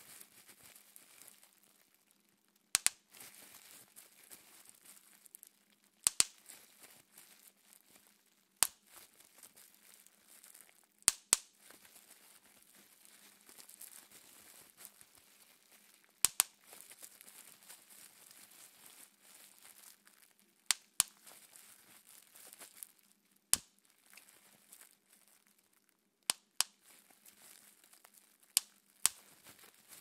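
Bubble wrap (aircap) being popped between the fingers: sharp single pops every two to three seconds, a few coming in quick pairs, with the plastic softly crinkling as it is twisted between pops.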